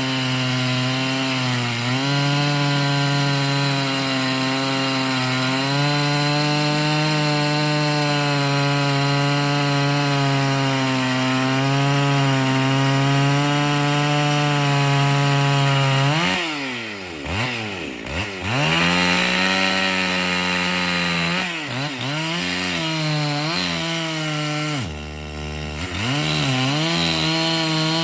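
Chainsaw running at full throttle, cutting through a dead ash log. In the second half the revs drop and climb back up twice as the throttle is eased off and squeezed again.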